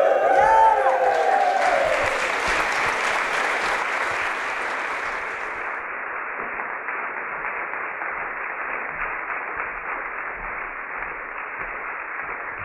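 Large audience applauding, the clapping slowly dying down, while the last held notes of a group song fade out in the first two seconds. After about six seconds the applause sounds duller.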